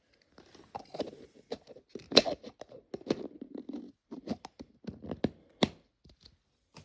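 Plastic Mini Brands capsule ball being opened by hand: irregular clicks, scrapes and crinkling of plastic.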